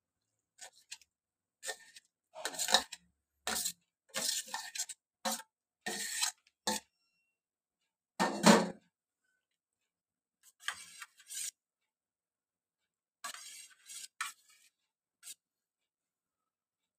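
Stainless steel plate and spoon clinking and scraping against a steel bowl in short, separate bursts, with one louder knock about halfway through.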